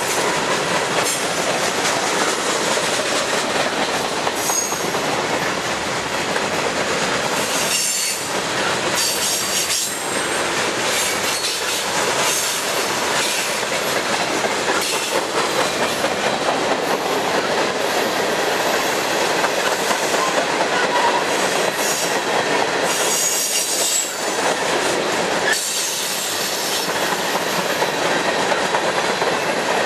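Cars of a mixed freight train rolling past close by: a steady clatter and rumble of steel wheels on the rails, with short high-pitched wheel squeals several times.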